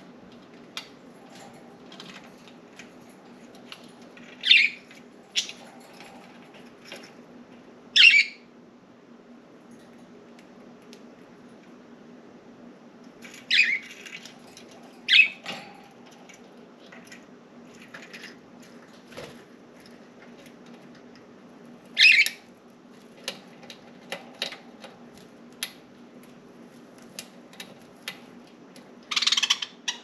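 Pet budgerigars calling: about six short, loud, high calls spread out, with faint chirps and clicks in between, over a steady low hum.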